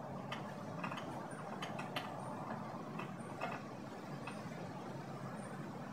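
Faint steady low rumble of background ambience, with light scattered taps and clicks as an adhesive strip is pressed along a pet door frame. A short, faint high chirp repeats about once a second.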